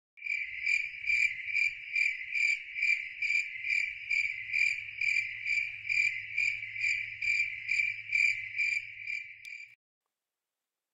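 Insect song: a steady high buzz that pulses evenly a little over twice a second, cutting off suddenly near the end, over a faint low hum.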